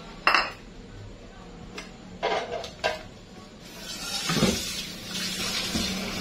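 Dishes and utensils clattering at a kitchen sink, with a few sharp knocks in the first three seconds. Then the tap is turned on and water runs in a steady hiss from about four seconds in.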